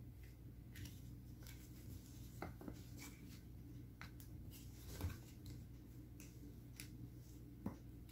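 Faint, scattered taps and scrapes of large jigsaw puzzle pieces being handled and slid across a wooden floor, over a low steady hum.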